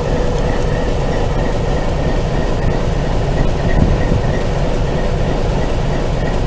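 Alco RS-8 diesel locomotive hauling a ballast train past: a steady, loud rumble of the engine and wheels on the rails.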